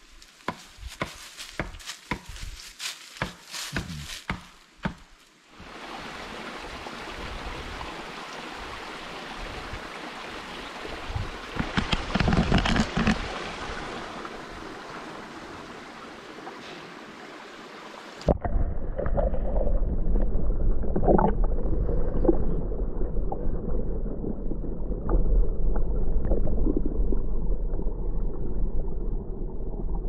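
Dry fallen leaves crackling and rustling as a dog noses through them; then, from about five seconds in, the steady rush of a creek. At about eighteen seconds it switches to a muffled, low underwater rush with bubbling, heard from beneath the creek's surface.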